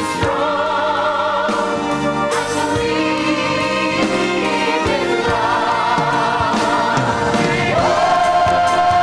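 A musical-theatre cast ensemble singing in chorus over instrumental backing, rising into a long held note near the end.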